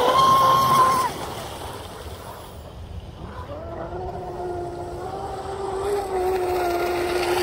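Pro Boat Blackjack 42 RC boat's electric motor whining at speed on the water. The high whine stops about a second in, and from about three and a half seconds a steadier, lower whine comes in and grows louder.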